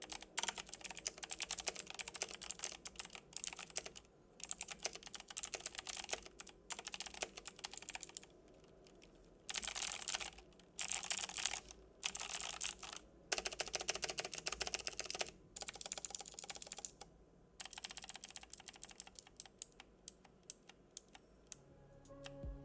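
Typing on a Logitech G Pro X mechanical keyboard with clicky blue switches: rapid trains of sharp key clicks in bursts with short pauses between them, loudest in a fast flurry about halfway through.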